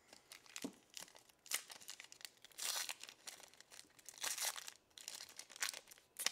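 Foil wrapper of a 2021 Bowman baseball card pack crinkling and tearing as it is ripped open by hand, in irregular crackling bursts.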